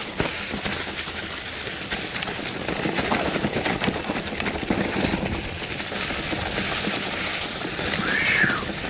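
Mountain bike rolling down a steep, leaf-covered dirt trail: a steady crunch and rumble of the tyres over leaves and ground, with rapid rattles and clicks from the bike. A short squeal rises and falls near the end.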